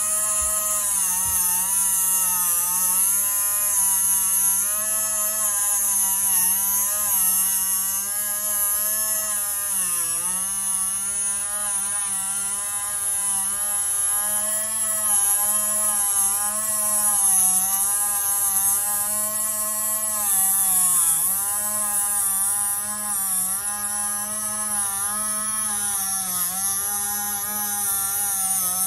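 Small plugged-in engraving tool's motor running steadily as its bit cuts a carbon and balsa spar outline, a whirring buzz with a high whine above it. Its pitch wavers as the tool is pulled along the cut and dips briefly twice, about ten and twenty-one seconds in, as the bit loads up.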